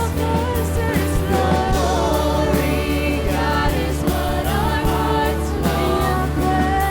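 Live contemporary worship music: singers over a band with a steady bass.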